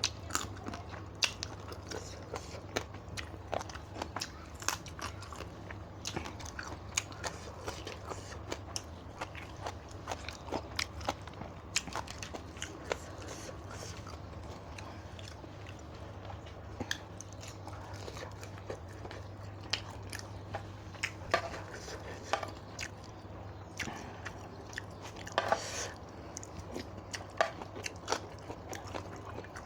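A person chewing and biting crunchy food close to the microphone: irregular small crunches and mouth clicks, over a steady low hum.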